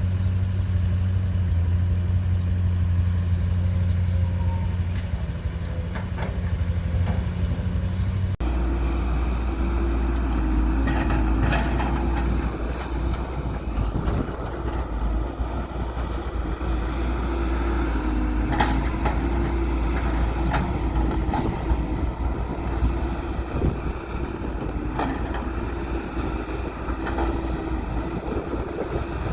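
Heavy construction machinery diesel engines running steadily; about eight seconds in the sound changes abruptly to a different, deeper-running machine, with a few sharp knocks scattered over it.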